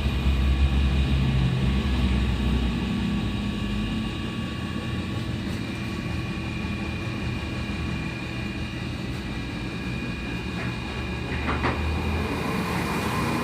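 A machine running steadily, with a low rumble and several steady whining tones, and a brief rattle about three quarters of the way in.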